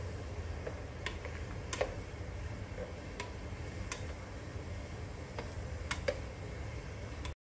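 White plastic rice paddle knocking against the inside of a cooking pot while stirring flowers in water: about seven short sharp taps, spaced unevenly, over a low steady hum. The sound cuts off suddenly near the end.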